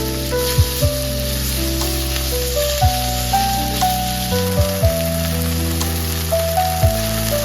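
Food sizzling steadily in a frying pan during a stir-fry, heard under background music with a melody and regular low drum hits.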